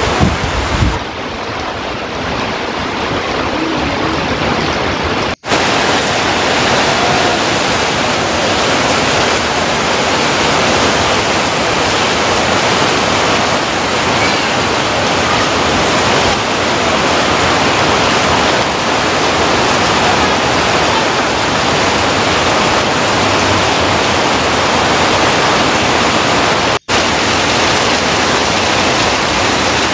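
Heavy rain pouring down with rushing water, a steady loud hiss. It cuts out for an instant twice.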